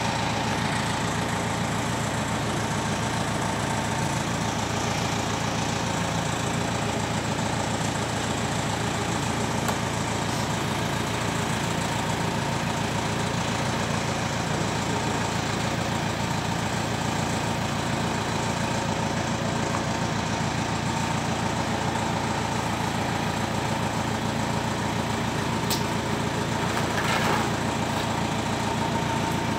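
An engine idling steadily, a constant unchanging hum.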